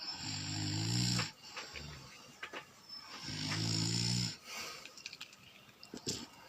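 A person snoring: two long snores, each a little over a second, about three seconds apart.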